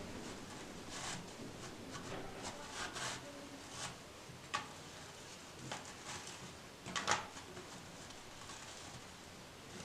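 Scattered light clicks, taps and rustles of small objects being handled, with the sharpest click about seven seconds in.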